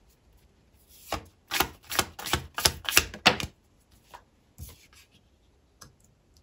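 Tarot cards being handled: a quick, uneven run of about nine sharp slaps and taps, then two lone taps near the end.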